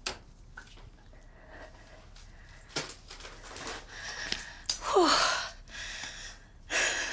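A severely obese woman breathing heavily and with effort as she moves on elbow crutches. A strained groan that falls in pitch comes about five seconds in, and there are a couple of sharp clicks.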